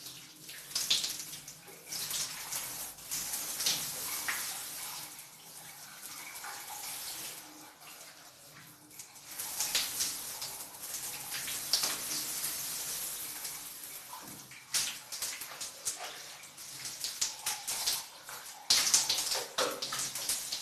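Shower running while someone bathes under it: water falling and splashing unevenly, with swells and sharp splashes as the spray is broken up.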